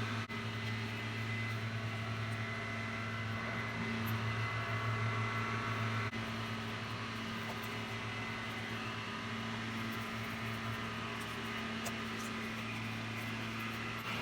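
Steady low background machine hum, with a couple of faint clicks.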